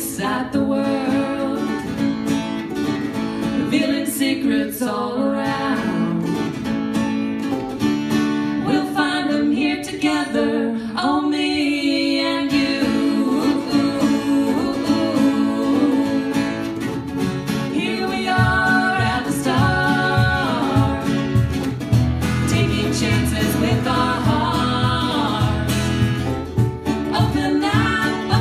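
A singer performing a song live over guitar accompaniment. About two thirds of the way through, a low, regular beat joins in.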